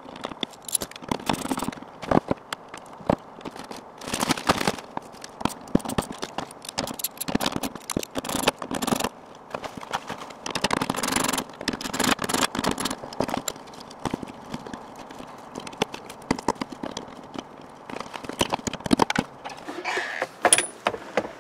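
Rapid, irregular clicking, rattling and scraping of plastic clips, wiring and small parts being handled and pried off the bare metal shell of a stripped car door.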